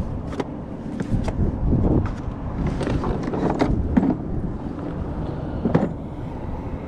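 Strong wind buffeting the microphone, a steady low rumble, with scattered clicks and knocks of handling.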